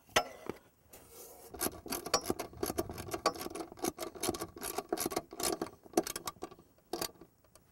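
Hand wrench working a bolt on a stump grinder's steel flap bracket: quick irregular metallic clicks and scraping, from about a second and a half in until near the end, with a sharp single click at the start.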